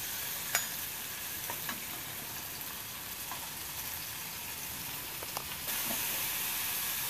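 Chopped onions sizzling in melted butter in a kadai as they are stirred in, with a few light clicks of a steel spatula against the pan. The sizzle gets a little louder near the end.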